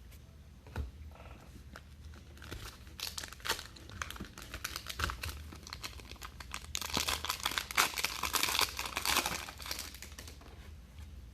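Crinkling and tearing of a foil trading-card pack wrapper being opened by hand, a dense irregular crackle that is busiest near the middle and end.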